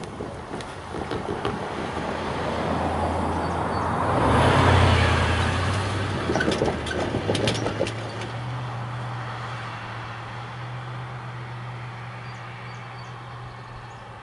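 Road traffic crossing a railroad level crossing. A car passes close by, loudest about four to five seconds in, with a few sharp clacks around six to eight seconds in. A lower engine hum follows and slowly fades.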